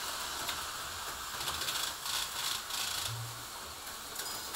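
An HO-scale slot car on an Aurora AFX X-Traction chassis running laps, its small motor making a steady whir and rattle on the track, a little louder for about a second around the middle. The layout's model train is running as well.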